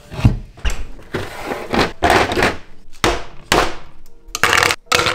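A quick run of hard knocks and rattling clatter: ice cubes knocked out of a plastic ice tray onto a stainless-steel counter.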